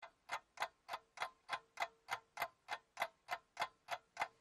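Clock ticking steadily, about three ticks a second: a ticking-clock sound effect laid over a fast-forwarded stretch to mark time passing.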